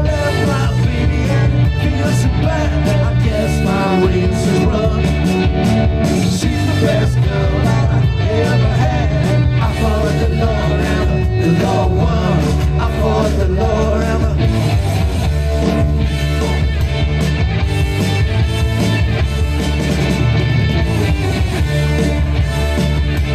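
Live band playing up-tempo rock and roll at full volume, with a steady beat and no sung words in this stretch between verses.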